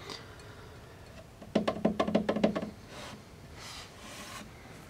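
A rapid crackling burst lasting about a second, starting about a second and a half in: the shorted rectifier in a Western Auto Model 587 tube console radio arcing under high voltage, a sign that the rectifier has failed.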